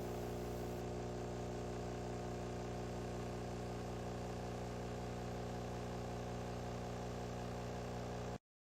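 Nespresso CitiZ espresso machine's pump running steadily during a brew, a constant buzzing hum that stops abruptly near the end.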